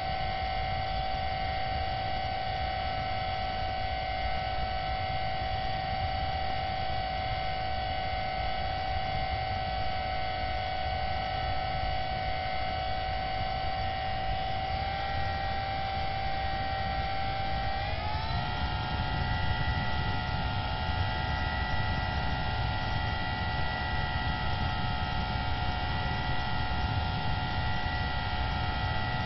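Steady whine of the FPV model airplane's electric motor: several tones stacked together. About eighteen seconds in it glides up to a higher pitch and holds there. A low rushing noise runs underneath.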